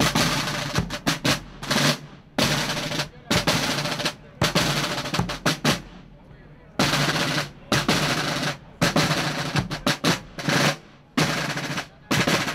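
Loud, rapid rattling in bursts a fraction of a second to over a second long, broken by short gaps, over a low steady hum.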